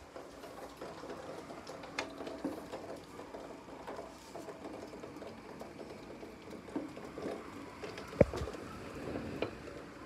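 Footsteps and handling noise of someone walking, a run of light taps and scuffs, with a single sharp knock about eight seconds in.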